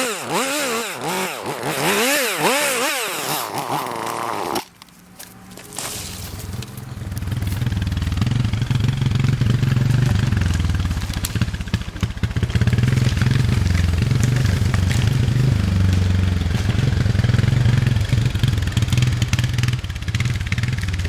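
Chainsaw revving up and down as it cuts limbs and bucks a felled tree, stopping abruptly about four and a half seconds in. After a short lull a vehicle engine starts running steadily with a low drone for the rest.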